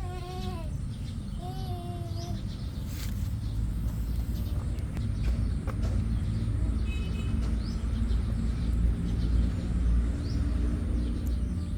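A kitten meows twice in the first two seconds, short falling cries, over a low steady rumble that grows louder partway through.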